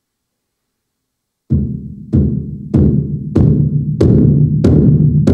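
Roland TAIKO-1 electronic taiko sounding its "Alternative" sound bank: about seven evenly spaced drum strikes, roughly one every 0.6 s, each leaving a long deep ring. The strikes begin after about a second and a half of silence.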